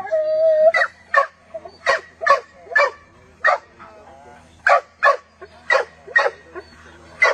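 A dog barking repeatedly, with about a dozen sharp barks that often come in pairs about half a second apart. There is a drawn-out whine in the first second and a wavering whine around the middle.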